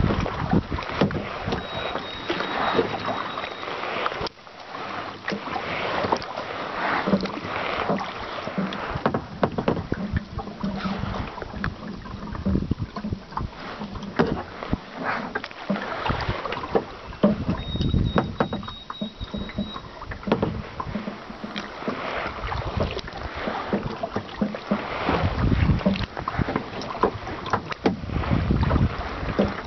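Paddling a plastic kayak: paddle blades dipping and splashing, with water lapping and rushing against the hull in uneven swells.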